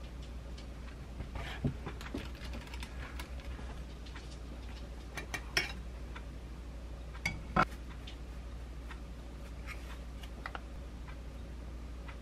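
Scattered light clicks and taps from kitchen handling: a metal straw clinking in a glass and a ceramic plate set down on the counter. The loudest taps come about a third and two thirds of the way in, and a low steady hum runs underneath.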